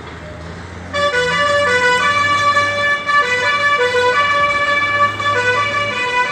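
A loud two-tone vehicle horn sounding for about six seconds, starting about a second in and switching back and forth between a higher and a lower note at an uneven pace, over a low rumble.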